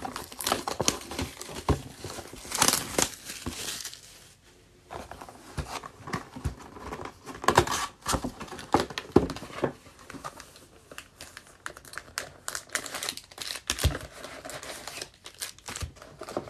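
Plastic wrap crinkling and tearing as a trading-card hobby box is unwrapped and opened, then its foil-wrapped packs are handled and laid out. Irregular rustling with sharp crackles, a brief lull about four seconds in.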